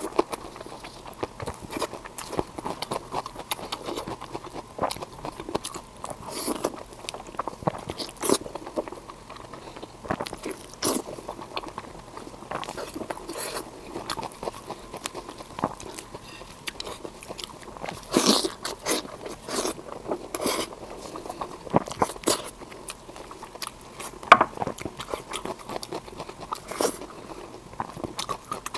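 Close-miked eating of tomahawk pork belly: irregular crunchy bites and chewing, with a few louder crunches about two-thirds of the way through.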